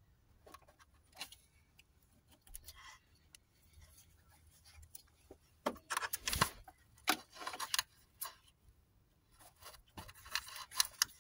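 Scattered plastic clicks and rattles as hands work a wiring-harness connector loose at the radiator cooling-fan relay, with a louder run of clicks about six seconds in and another near the end.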